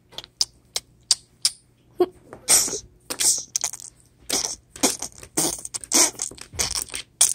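A child making fight sound effects with the mouth for toy soldiers: a few sharp clicks, then a quick run of short hissing, spitting bursts.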